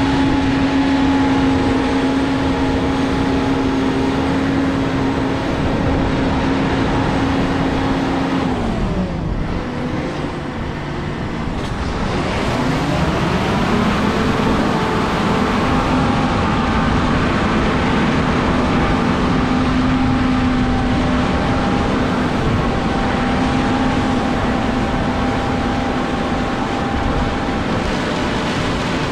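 A large diesel farm machine's engine running with a steady drone. About eight seconds in its pitch falls away, and a few seconds later it climbs back up to a steady speed.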